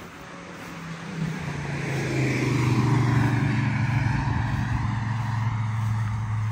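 A passing engine: a low, even hum that swells to its loudest about three seconds in and then slowly fades, its pitch sinking slightly as it goes by.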